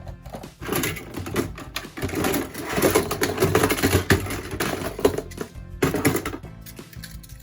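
Plastic toy police cars clattering and rattling, a dense run of clicks that builds up about a second in, is loudest in the middle and dies down near the end, over background music.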